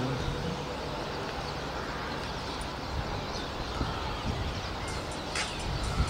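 A flock of starlings calling, a scatter of faint short chirps and whistles over steady background noise, with a few sharper calls near the end.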